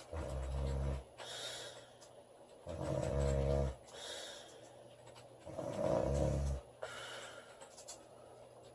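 A woman snoring loudly in sleep: three low, rattling snores about two and a half seconds apart, each followed by a softer breathy exhale, with only light breathing near the end.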